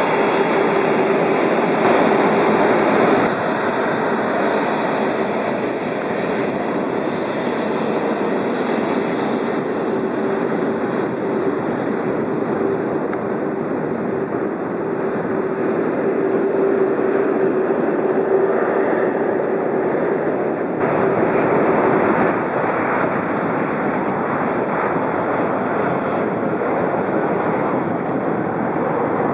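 Airbus A380's four Engine Alliance GP7200 turbofans running steadily at taxi power, with a steady hum under the jet noise. The sound changes abruptly twice.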